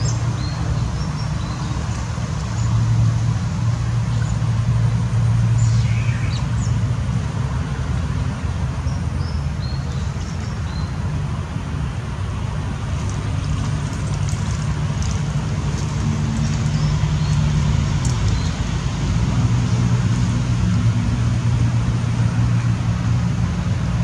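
Steady low rumble of road traffic, with scattered short, high squeaks from smooth-coated otter pups calling to their parents for fish, including one longer falling squeak about six seconds in.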